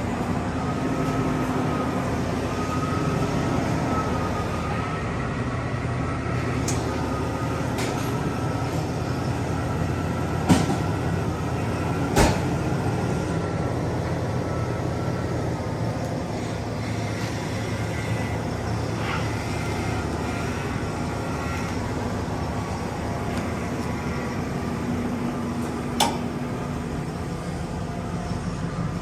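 Pickup truck engine running steadily, with a few sharp knocks or clicks over it.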